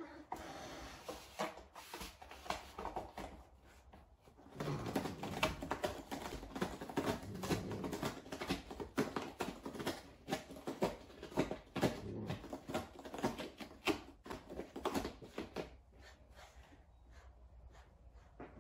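Savannah cat clawing a corrugated cardboard scratcher: a fast run of raspy scrapes, starting a few seconds in and stopping shortly before the end, with a few lighter scratches before it.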